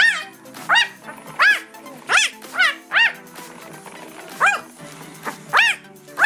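Newborn German Shepherd puppy crying: about ten short, high-pitched squeals that rise and fall in pitch, coming at irregular intervals.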